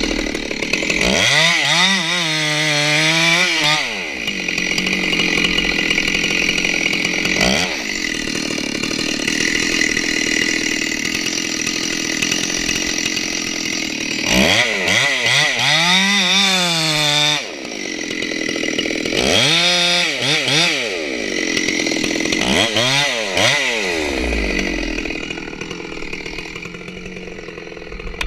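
Stihl 064 two-stroke chainsaw sawing into the corner of a redwood's back cut, its engine pitch rising and falling four times between steadier stretches of cutting. It runs quieter near the end.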